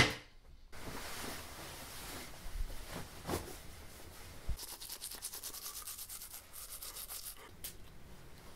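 Clothing fabric rubbing and rustling as a shirt is pulled on and adjusted, opening with a sharp knock. About halfway through comes a fast run of fine scratchy rubbing strokes lasting a few seconds.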